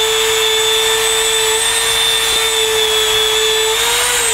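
Dremel rotary tool running at medium speed, its polishing wheel buffing a coin: a steady high whine. Near the end the pitch rises briefly as the wheel is lifted off the coin.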